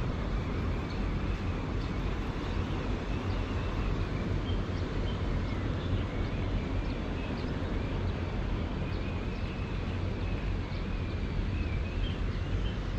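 Steady outdoor ambience: a low rumble of wind on the action camera's microphone mixed with distant traffic, with faint high wavering chirps running through it.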